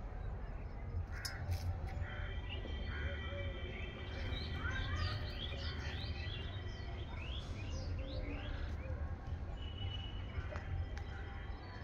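Crows cawing and small birds chirping in quick, sliding calls, over a steady low rumble.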